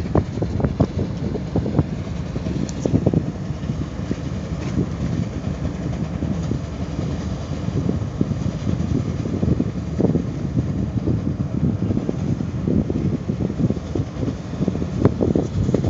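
Steady low rumble of a boat's engine under way, with wind buffeting the microphone in irregular gusts.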